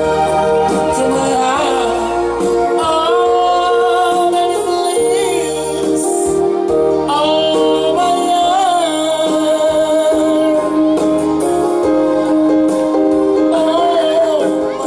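A song: one voice singing, with a wavering vibrato on held notes, over steady held instrumental chords.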